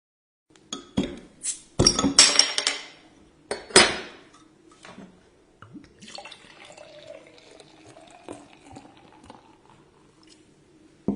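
Liquid poured and splashing in glassware, with sharp clinks of glass. A cluster of clinks and splashes comes in the first few seconds, then a quieter steady trickle, and a sudden loud knock right at the end.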